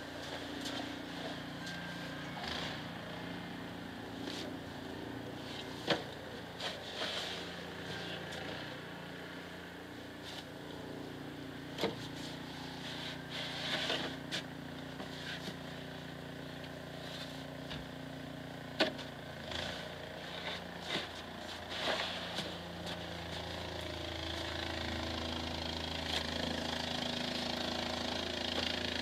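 An engine running steadily, with scattered sharp clicks and knocks over it.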